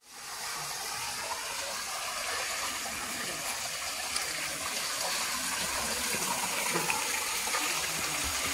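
Water pouring steadily from a carved stone spout into a stone trough, splashing into the water below. It fades in over the first half second.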